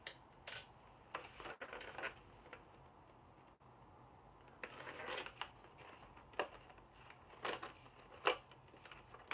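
Small plastic clicks and light rustling from action figures and a clear plastic display stand being handled, with about eight scattered clicks and a sharper one near the end.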